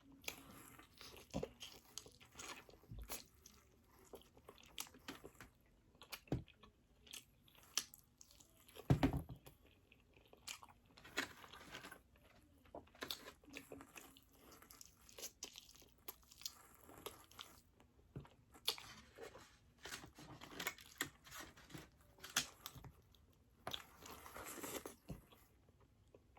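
Eating sounds: biting, crunching and chewing of food, in irregular short bursts, with one louder crunch about nine seconds in.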